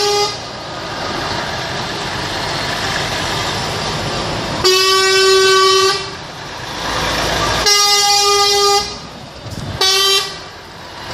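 Truck horn giving several blasts on one steady note: the tail of one at the start, then one of about a second and a half, one of about a second, and a short toot near the end. Vehicle engine and road noise runs between the blasts.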